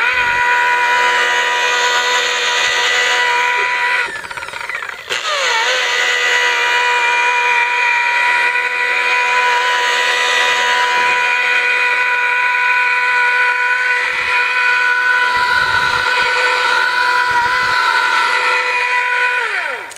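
Makita 9237 rotary polisher's electric motor running with a steady whine. It drops out about four seconds in, comes back a second later, and spins down with a falling pitch near the end.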